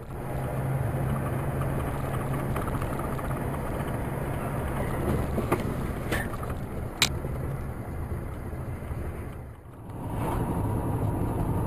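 Steady road and engine noise of a car driving, heard from inside the cabin, with a low hum and a few sharp clicks between about five and seven seconds in. Near the end it drops away briefly, then comes back as similar driving noise.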